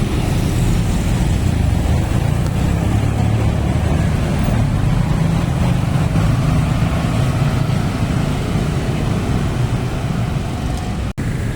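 Motor vehicle engine running amid road traffic: a steady low rumble that cuts out for an instant near the end.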